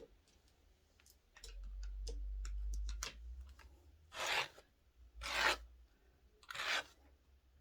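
A brush or comb drawn through synthetic wig hair in three slow strokes a little over a second apart, each a short hissing swish. A low rumble of handling comes before them, about a second and a half in.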